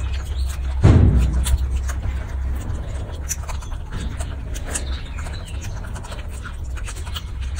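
A baby monkey biting and chewing strawberries, giving short wet clicks and smacks over a steady low rumble, with one heavy thump about a second in.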